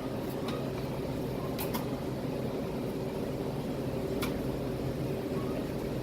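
Steady low machine hum of kitchen equipment, with a few light clicks as the shake machine's blade and barrel parts are handled and fitted.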